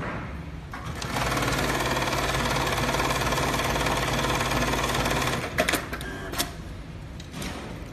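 Programmable automatic industrial sewing machine stitching polyester webbing, its needle running at a fast, even rate for about four seconds from about a second in, then stopping. A few sharp clicks follow, over a steady low machine hum.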